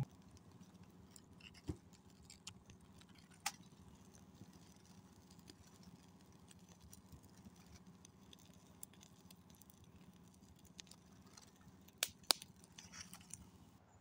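Small fire of dry twigs and leaves burning, with faint scattered crackles and pops; a sharper pair of pops comes near the end.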